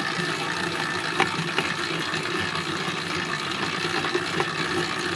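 Stand mixer running steadily, its dough hook churning a wet, high-hydration dough in a steel bowl, with a few faint clicks. The dough has gathered into one smooth mass and pulled away from the bowl's sides: the end of kneading, with the gluten fully developed.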